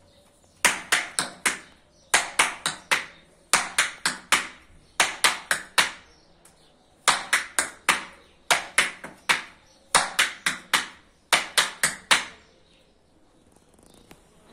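Tap shoes striking a tap board in the single essence step (step, flap, step), heard as sharp clicks in quick groups of four. There are eight such groups, with a short pause after the fourth.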